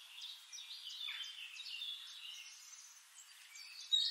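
Birds chirping and singing faintly, many short high calls overlapping.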